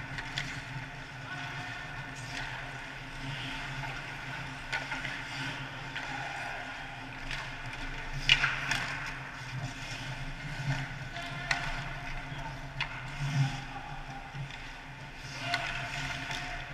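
Ice hockey play: skates scraping and carving on the ice, with scattered sharp clacks of sticks and puck. The loudest clack comes about eight seconds in, over a steady low hum.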